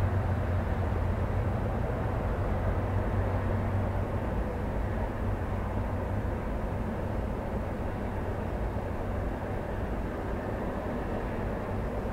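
Road traffic: a steady low rumble of vehicles with an engine hum, a little louder at the start and easing off gradually.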